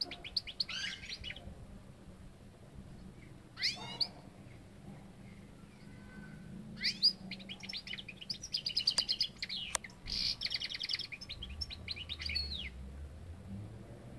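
European goldfinch singing: short twittering phrases near the start and at about four seconds in, then a longer run of rapid, liquid twitters and trills from about seven to twelve and a half seconds in.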